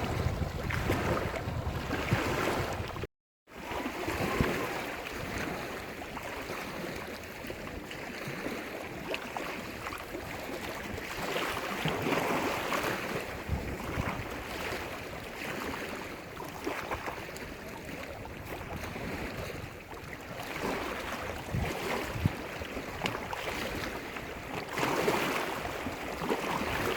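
Small waves washing onto the shore of Lake Issyk-Kul, the surf swelling and easing every few seconds, with wind on the microphone at the start. The sound cuts out completely for a moment about three seconds in.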